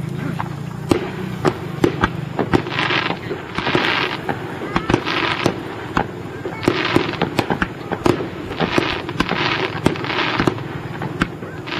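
Aerial fireworks shells bursting: a rapid, irregular string of sharp bangs, with several half-second bursts of crackling hiss.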